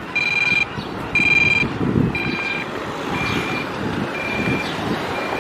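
Pedestrian crossing signal beeping: a steady high beep about once a second, six beeps in all, growing fainter after the first three, over street traffic noise.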